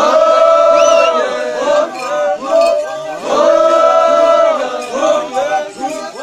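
A large crowd of dancers chanting and singing in unison, holding a long, high note for about a second, roughly every three seconds, with shorter phrases between.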